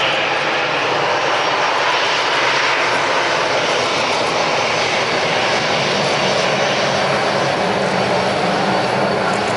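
Airbus A320's jet engines running at low taxi thrust as the airliner rolls slowly past, a steady even sound with no rise or fall.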